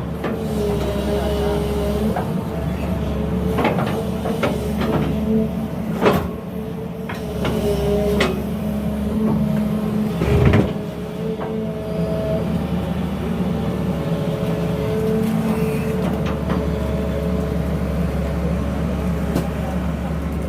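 Sany 220 hydraulic excavator running steadily under load, its engine and hydraulics giving a constant drone with a held tone that shifts slightly in pitch now and then. A few sharp knocks cut through it, about 4, 6, 8 and 10 seconds in.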